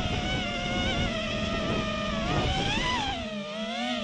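Neato 205 FPV racing quadcopter's brushless motors and propellers whining in flight. The pitch wavers with the throttle, climbing about three seconds in and then dropping.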